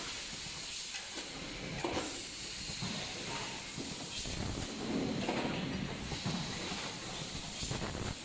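Automatic rotary premade-pouch packaging machine and bowl elevator running: a steady hiss with irregular clacks and knocks from the moving parts.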